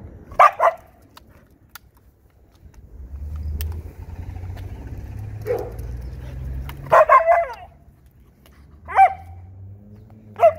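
Siberian huskies giving short barks and yips, in a quick pair, then singly and in a rapid cluster of three or four. A low rumble of a passing car runs under them through the middle.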